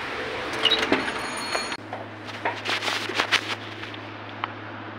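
A steady rushing noise that cuts off abruptly under two seconds in. A steady low hum follows, with a quick run of light clicks and knocks about a second later.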